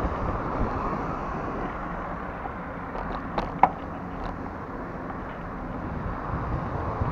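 Wind buffeting the microphone of a moving camera over a steady hum of street traffic, with a short cluster of sharp clicks about halfway through.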